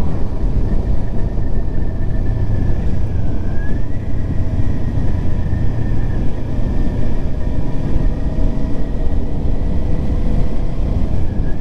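Kawasaki Ninja 400 parallel-twin engine running steadily at cruising speed, heard from the rider's seat, with wind rushing over the microphone; the engine note lifts slightly about three and a half seconds in.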